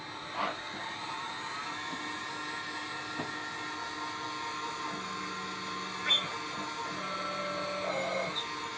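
CNC machine running: a steady motor whine holding several pitches, with a lower hum cutting in and out in the second half. A few sharp clicks, the loudest about six seconds in.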